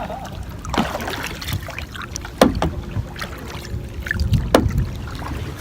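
Canoe paddling: a few separate paddle strokes, each a splash or knock, over a steady low rumble.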